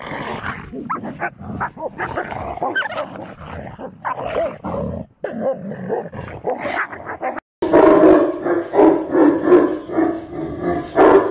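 Dogs growling in a scuffle. Then, for the last few seconds, a large dog, a Tibetan mastiff, barks loudly and repeatedly, two or three barks a second.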